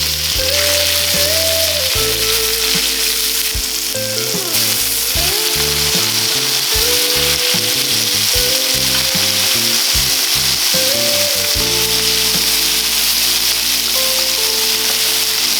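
Food sizzling steadily on hot metal, with background music playing over it.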